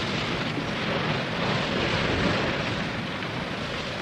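Steady rush of wind and sea on a sailing ship's deck, a hiss over a low rumble, swelling a little in the middle.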